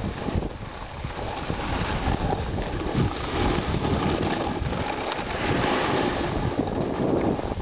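Wind buffeting a helmet-mounted camera's microphone over the hiss and scrape of a snowboard sliding on packed snow, getting louder about three seconds in as the board picks up speed.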